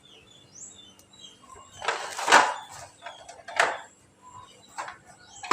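Scraping swishes while a refrigerator is being cleaned, four of them: one long, loud one about two seconds in, then shorter ones about a second apart.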